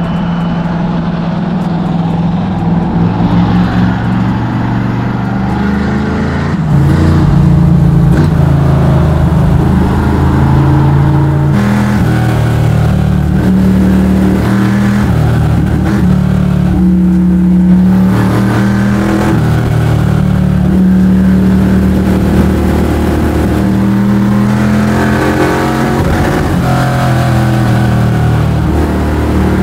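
Small-block Chevy V8 of a square-body Chevy C10 drift truck running loud on the street, its engine note rising and dropping again and again as it revs and lets off.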